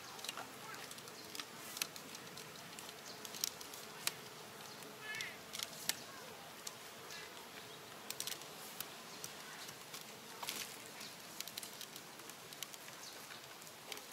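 Infant long-tailed macaque giving one short, high squeak about five seconds in, over a faint steady hum and scattered soft clicks.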